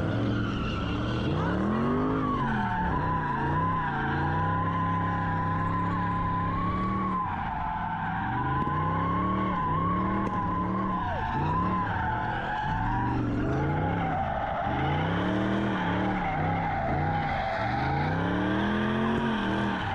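A car spinning its tyres: the engine revs up and falls back over and over while the tyres squeal continuously. The squeal drops a little in pitch about two-thirds of the way through.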